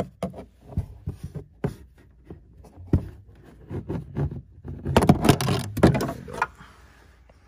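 Plastic interior trim being pried with a trim removal tool: scattered clicks, knocks and scraping, busiest and loudest about five to six seconds in.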